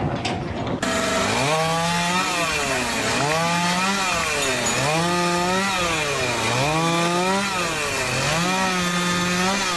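A motorised power tool, such as a saw, running loudly, its pitch swinging up and down about five times in a steady cycle. It starts about a second in and cuts off abruptly at the end.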